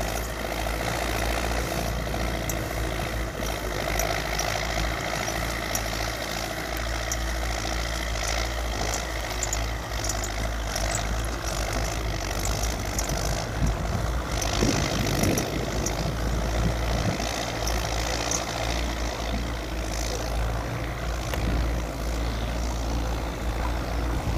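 Belarus 825 tractor's diesel engine running steadily under load while pulling a disc plough through the soil.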